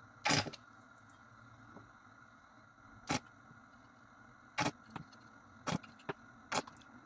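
Cooking oil glugging out of a tilted plastic bottle as it pours into a glass pot: a string of short, irregular gulping pops as air slips back into the bottle, the first the loudest, over a faint steady hum.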